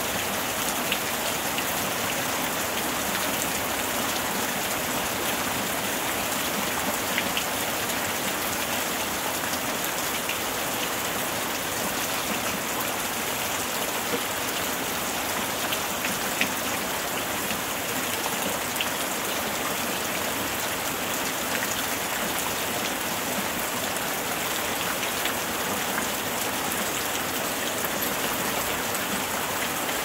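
Heavy rain falling steadily on a roof and the trees around it: a dense, even hiss with scattered sharper drop ticks.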